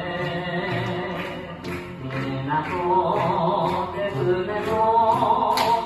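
Hawaiian hula song with a singer over a steady bass line.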